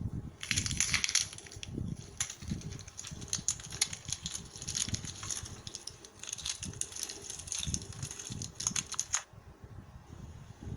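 Rapid crunching and crackling clicks, many in quick succession, from about half a second in until about nine seconds, over a low rumble.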